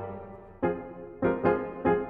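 Solo piano playing a quirky, slightly dark, suspenseful classical-style piece. A chord fades away, then fresh notes are struck about half a second in and three more times in an uneven rhythm.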